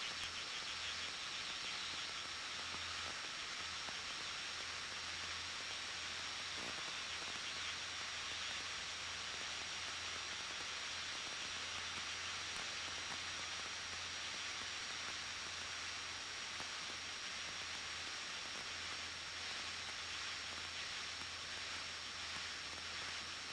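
Faint steady hiss of a light aircraft's headset intercom between radio calls, with a low, even drone of the Cessna 172N's engine and propeller underneath.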